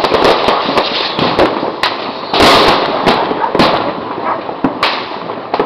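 Fireworks and firecrackers going off in quick, irregular pops and cracks, with one longer, louder burst about halfway through.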